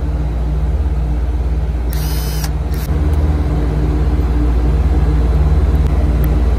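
Steady, loud low hum of running machinery, with a short high hiss about two seconds in.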